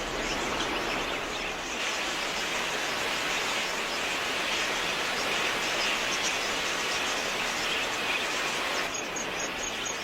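Dense, steady chatter of a large budgerigar flock. Near the end a fast, evenly repeating insect chirp comes in.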